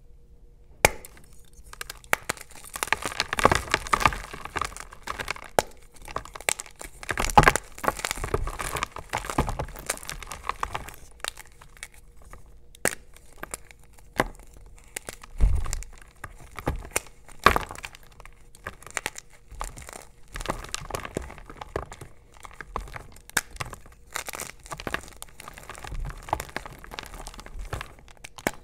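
Blocks of gym chalk being snapped and crushed by hand: a run of sharp cracks as the blocks break, with dry, crunchy crumbling between them as the fragments are squeezed into powder.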